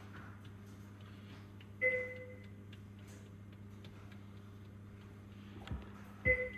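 Steady low electrical hum of hospital equipment, with two short pinging tones about four and a half seconds apart. Each ping starts with a click, and there is a small knock just before the second.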